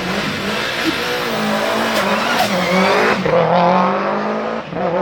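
Subaru Impreza WRX STi's turbocharged flat-four engine revving hard under acceleration, its pitch climbing, dropping sharply on a gear change about three seconds in, then climbing again.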